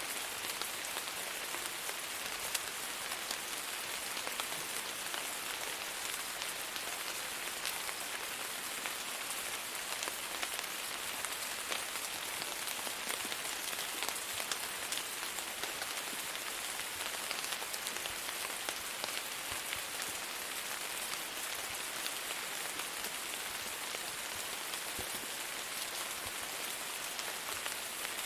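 Steady rain falling on a surface, an even hiss with many fine individual drop ticks and no thunder.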